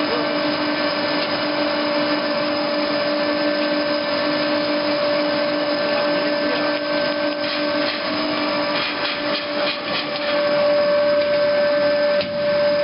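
PVC pipe coiling and extrusion machinery running: a steady motor hum with a high whine held on one pitch. A short run of light clicks and knocks comes about two-thirds of the way through.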